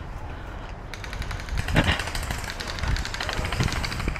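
Gel blaster firing full-auto, a fast mechanical rattle of shots starting about a second in, with a few heavier thumps among them.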